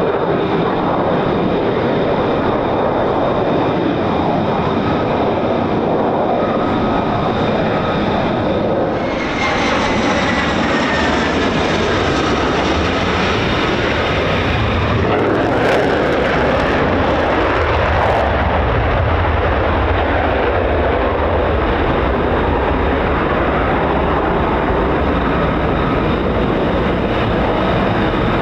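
F-35A Lightning II fighter jets' single F135 turbofan engines, loud and continuous as the jets fly low approaches. About ten seconds in, a high whine glides down in pitch as a jet passes. From about 15 seconds in the low rumble grows heavier, with a few sharp crackles.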